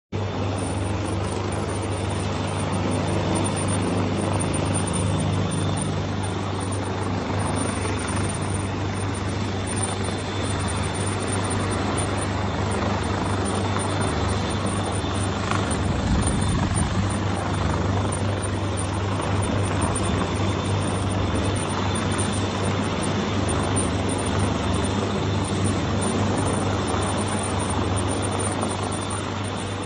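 Storm-force wind of a tropical cyclone: a steady, loud rushing noise with a low rumble that holds throughout.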